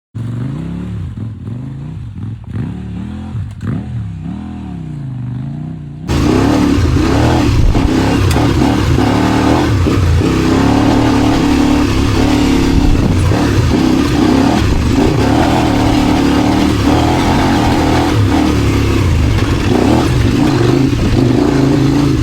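Kove 800X Rally motorcycle engine running, its pitch rising and falling with the revs. About six seconds in the sound jumps to a much louder, fuller steady running.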